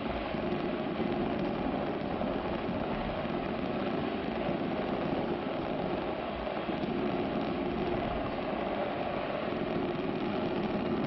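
A fireworks display heard from a distance: many shells bursting close together blend into a steady rumble, with no single bang standing out.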